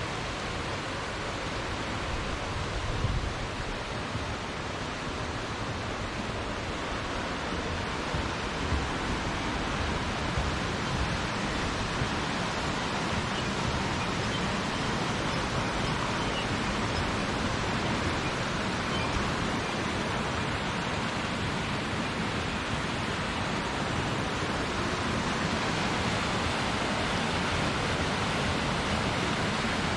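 Waterfall: falling water rushing in a steady, even hiss, with a few brief low rumbles in the first ten seconds.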